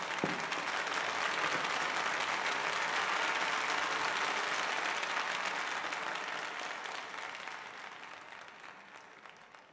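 Applause: dense clapping that swells in at the start, holds, then fades away over the last few seconds.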